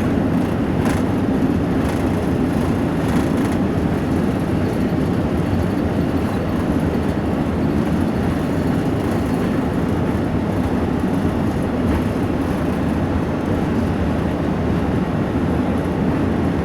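Steady engine noise and rumble heard inside the cabin of an Airbus A380 during takeoff.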